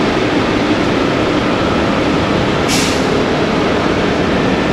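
Steady noise of heavy trucks running at the kerb, with a short hiss of air about two and a half seconds in.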